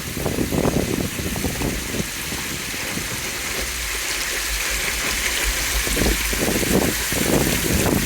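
Rushing, gushing flash floodwater, a steady loud hiss that swells in the middle, over an uneven low rumble.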